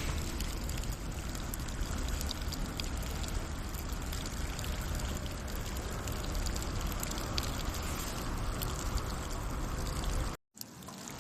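Steady rain falling, with scattered light ticks of drops through it. The sound cuts out for a split second near the end, then the rain carries on.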